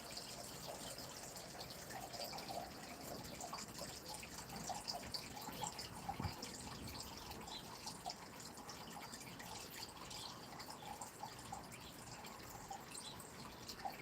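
A small stream trickling and babbling, with many small irregular drips and splashes over an even wash of water. There is one brief low thud about six seconds in.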